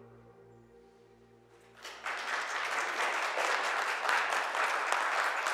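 Quiet ambient music of sustained tones, cut off about two seconds in by a small audience applauding, a dense patter of handclaps that carries on to the end.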